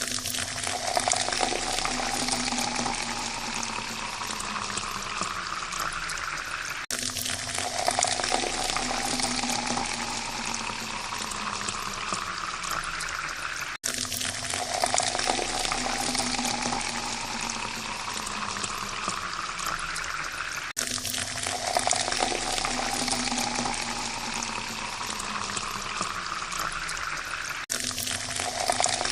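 Water poured into a glass: a splashing rush whose pitch rises steadily as the glass fills, then cuts off abruptly. The same pour starts over about every seven seconds.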